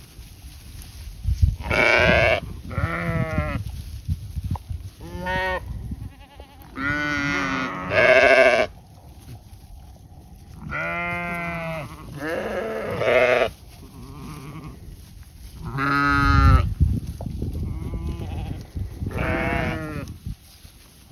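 Goats and sheep bleating, about ten separate calls of under a second each, several with a wavering, quavering pitch.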